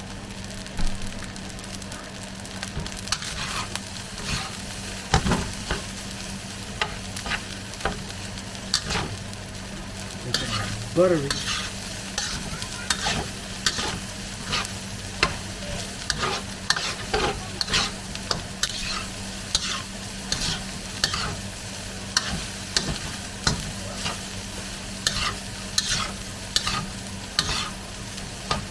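Buttered egg fried rice sizzling in a hot pan while a spatula stirs it, scraping and knocking against the pan about once or twice a second.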